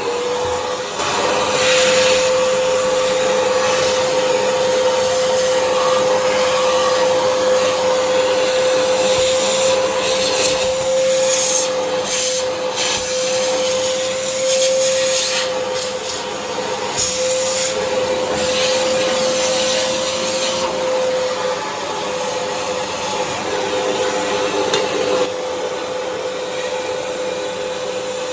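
Vacuum cleaner running with a steady whine over a rushing hiss. The hiss brightens and shifts several times as the nozzle is moved and pressed against dusty surfaces.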